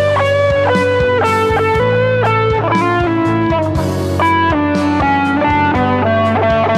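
Music with electric guitar playing a rapid run of notes over a steady bass and beat.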